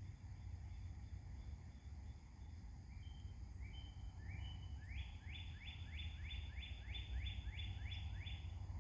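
Mockingbird singing: a few short high notes, then from about five seconds in a fast run of about ten rising upswept notes repeated one after another. A steady low rumble sits underneath.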